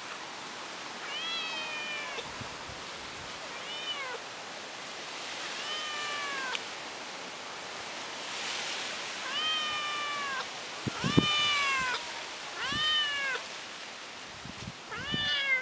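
Tabby kitten meowing over and over: about seven short, high-pitched meows, each falling in pitch, a second or two apart. A few low bumps come in the second half.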